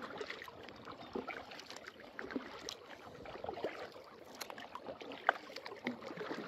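Kayak being paddled: the paddle blades splashing and dripping in the water with each stroke, with small clicks and one sharper tap about five seconds in.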